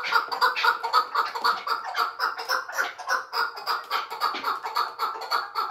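Chukar partridge calling: a fast, steady run of clucking 'chuk' notes, about five a second.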